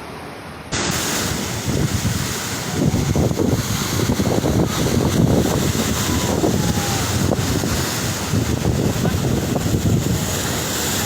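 Strong wind gusting and buffeting the microphone, a loud rushing noise with irregular low rumbles, starting abruptly about a second in.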